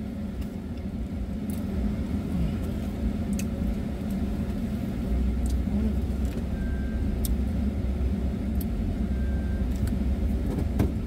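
Steady low rumble inside a pickup truck's cab, the engine and air conditioning running, with a few faint clicks.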